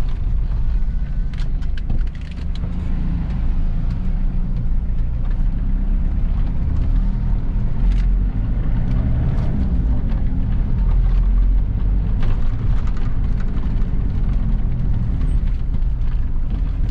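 Mitsubishi Pajero's 4D56 four-cylinder turbo-diesel engine running as the vehicle is driven, a steady low drone mixed with road noise and a few light rattles.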